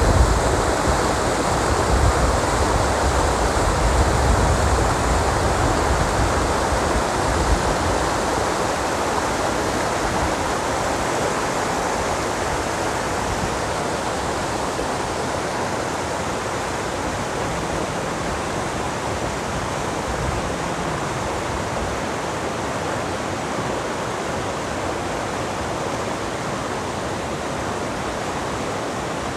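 Mountain river stream rushing steadily over rocks, with a low rumble in the first several seconds before it settles to an even level.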